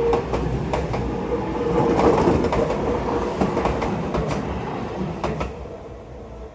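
Electric commuter train passing close by, its wheels clacking over the rail joints. It is loudest about two seconds in and fades away near the end.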